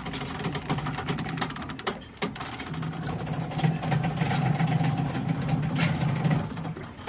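Soundtrack passage of fast, dense mechanical clatter, with a low steady hum joining in about three seconds in.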